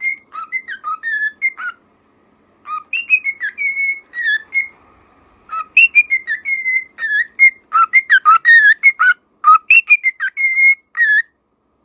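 Parrot whistling a short tune, repeating the same phrase of clear gliding notes several times with brief pauses between phrases.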